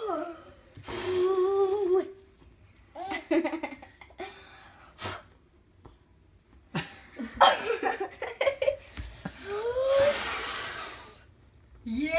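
A baby laughing in repeated short bursts, with a rising squeal. About ten seconds in comes a long breathy blow at the birthday candles.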